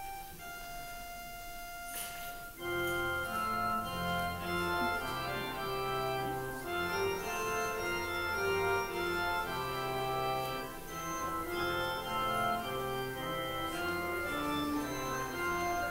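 Organ playing the postlude that closes a church service: a soft held note, then full sustained chords with a deep pedal bass coming in about two and a half seconds in.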